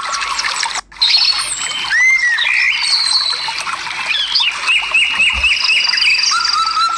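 Several birds calling and singing at once: overlapping whistles, chirps and trills, with a short series of repeated chirps in the second half. The sound cuts out sharply for an instant just under a second in.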